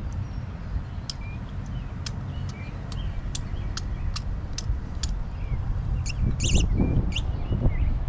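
Wind rumbling on the microphone, with scattered sharp clicks and short bird chirps; a louder cluster of clicking and rustling comes about six and a half seconds in.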